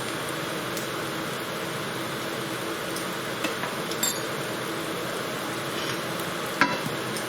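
Onions, garlic and chillies frying in oil in a pan, a steady sizzle. A few light clinks of a utensil or the pan, the sharpest one near the end.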